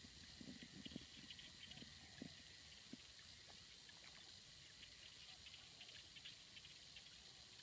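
Near silence: steady background hiss, with a few faint soft taps in the first three seconds.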